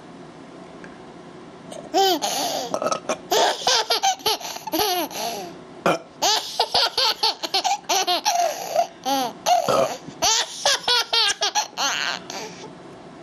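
A child laughing hard in rapid, repeated bursts, starting about two seconds in and dying away near the end.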